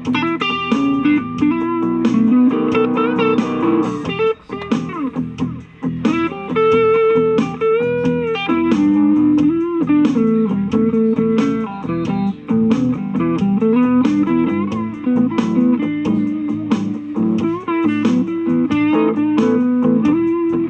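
Electric guitar played through an M-Vave BlackBox amp-modeling effects unit on a clean blues tone: a run of picked single-note lines with bent notes.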